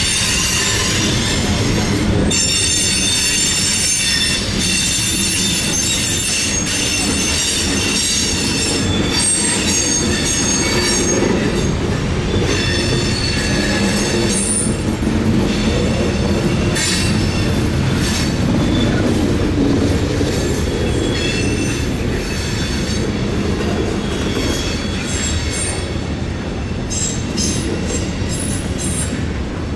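Freight cars rolling slowly past: a steady rumble of steel wheels on rail, with high-pitched wheel squeal that comes and goes.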